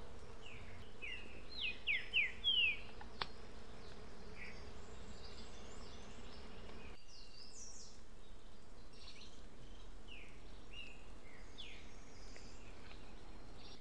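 Forest ambience: a small bird gives short, swooping chirps in a quick run about a second in and again from about eight seconds. A steady insect hum runs underneath, and there is one sharp tick about three seconds in.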